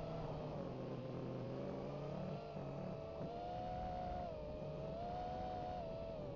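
FPV quadcopter's electric motors and propellers whining as it flies, heard from the onboard camera, the pitch drifting up and down with the throttle.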